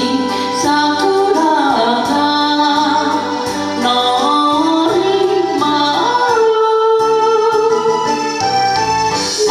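A woman singing a slow Japanese song, holding and bending long notes with vibrato, over instrumental backing music.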